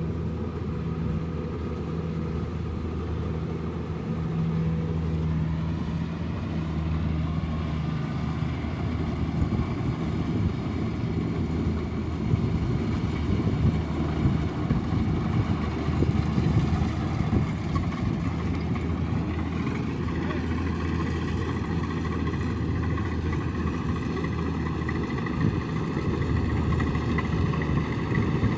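Kubota rice combine harvester running steadily, a low engine hum with a fainter higher whine above it. The sound turns rougher and more uneven for a while around the middle.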